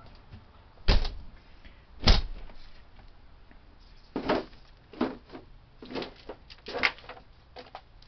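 A screen door banging twice in quick succession, a little over a second apart, followed by several softer knocks and clunks.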